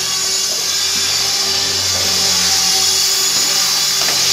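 Align T-Rex 450 electric RC helicopter in flight: its brushless motor, gears and spinning rotor blades give a steady high-pitched whine, the pitch shifting slightly as the headspeed changes.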